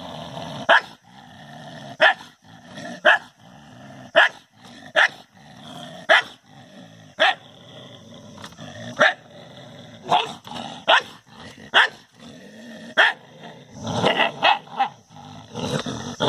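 A dog growling and barking aggressively at its own reflection in a mirror: short, sharp barks about once a second, with growling in between.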